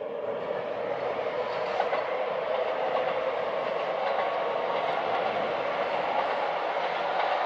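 Keihan electric train running over a steel railway bridge: a steady, loud rumble of wheels on rails and bridge girders.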